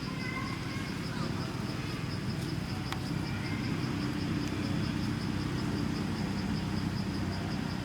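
An insect's high-pitched trill, pulsing evenly and without break, over a low steady rumble, with one sharp click about three seconds in.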